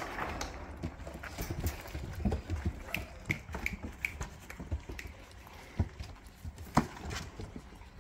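Puppies' paws running and scrambling over wooden boards, a quick irregular patter of knocks, with one sharper knock about seven seconds in.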